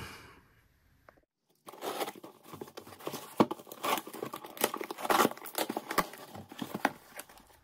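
Shipping package being torn open by hand: irregular tearing and crinkling of packaging with many sharp crackles, starting a little under two seconds in.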